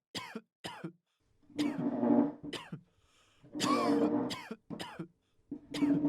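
A person coughing and clearing their throat in a string of short separate bursts, as in the background of a crowded exam room.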